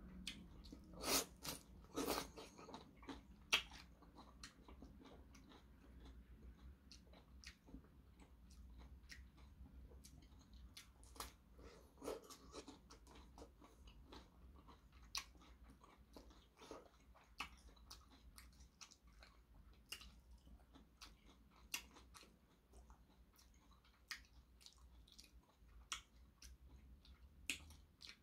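Close-up crunching bites and chewing of crisp raw cucumber and Korean melon slices. Three loud crunches come in the first few seconds, then softer chewing clicks go on at an irregular pace.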